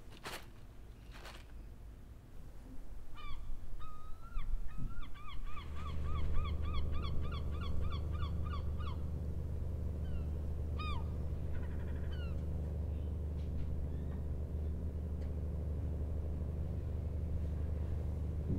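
Two sharp knocks, then gulls calling in quick runs of short arched cries. From about five seconds in, a boat's engine drones steadily and low under them, heard from inside the cabin.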